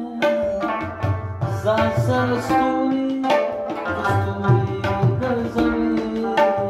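Afghan rabab playing a plucked melody with tabla accompaniment.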